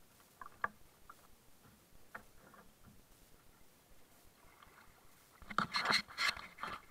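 Faint small knocks on a plastic kayak, then about five and a half seconds in a louder stretch of rubbing and knocking close to the bow-mounted camera as a hand reaches in beside it.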